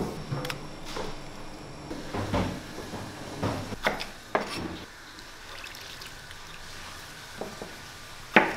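Irregular knocks and clicks of a kitchen knife on a cutting board while fresh peppers are sliced and minced-meat topping is handled. The knocks come thickest in the first half, and there is one sharp click near the end.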